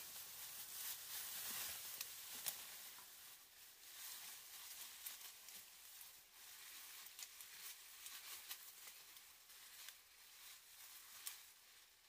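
Faint rustling of leaves and undergrowth with scattered small clicks and snaps, as a person works with their hands at ground level among ferns and leaf litter. It is a little louder in the first few seconds.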